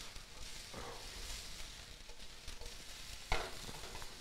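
Diced chicken frying in a skillet, sizzling as it is stirred and tossed, with little moisture left in the pan so the chicken is browning. A single sharp clack of pan or utensil about three seconds in.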